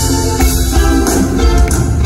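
Live band music in an instrumental passage between sung lines: acoustic guitar strummed over drums and keyboard.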